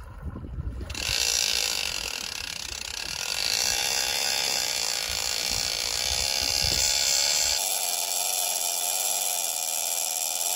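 Ratchet clicker of a large overhead game-fishing reel buzzing steadily as line is pulled off the spool by the bait being kayaked out, its pitch wavering with the pull. It starts about a second in.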